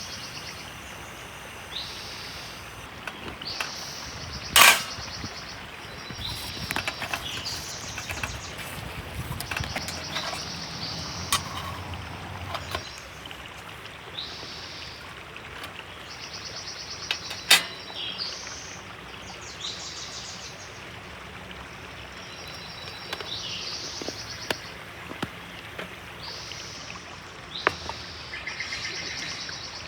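Birds chirping repeatedly over the steady rush of a river, with a few sharp clicks or knocks, the two loudest about four seconds in and a little past halfway.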